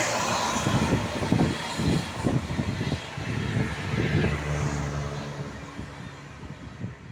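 A bus passing on the road and pulling away, its engine rumble and drone fading over several seconds.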